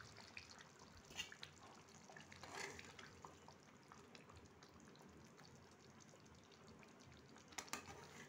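Faint bubbling of thick kadai paneer gravy simmering in an open pan, with a few soft clicks and scrapes of a metal spatula stirring it.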